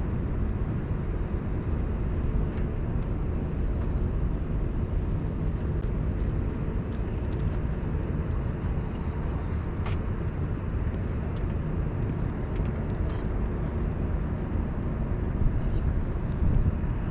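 Steady low outdoor rumble with a few faint clicks scattered through it.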